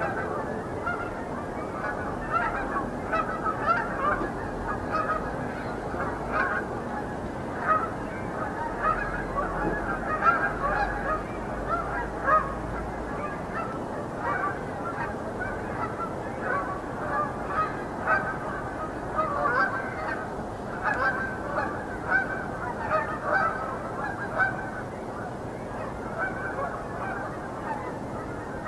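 A flock of Canada geese honking, many calls overlapping.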